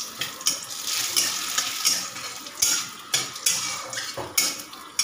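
Dried red chillies and bay leaves sizzling in hot oil in a metal kadai, tempering for dal, while a metal spatula scrapes and clinks against the pan in irregular strokes as they are stirred.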